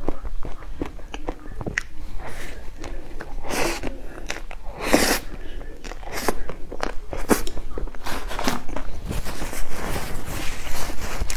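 Close-miked eating: bites and chewing with many small sharp clicks, and a few louder, longer bursts about 3.5, 5 and 7.5 seconds in.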